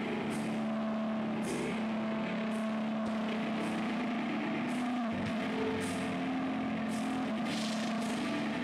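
Live indie rock band playing a loud, sustained distorted electric-guitar drone, held notes ringing under a dense wash, with cymbal strikes recurring roughly every second.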